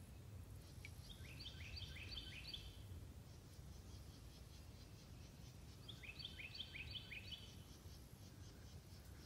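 A songbird singing two short phrases of four or five quick repeated notes, a few seconds apart, over a faint low steady rumble.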